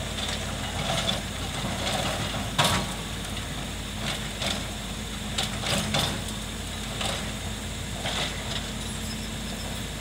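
Caterpillar hydraulic excavator's diesel engine running steadily while it digs, with a series of short clanks and knocks from the bucket and arm working the soil; the sharpest knock comes about two and a half seconds in.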